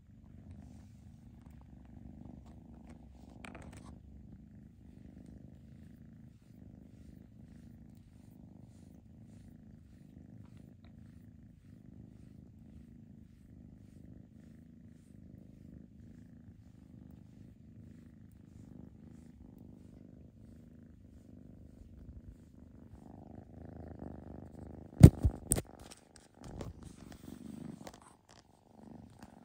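A kitten purring steadily, close up, while being stroked on the head. Near the end, a few sharp knocks and some rustling drown it out.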